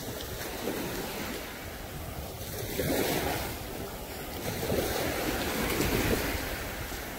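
Small surf breaking and washing up on a sandy beach, with wind buffeting the microphone. The wash swells louder about three seconds in and again around five to six seconds.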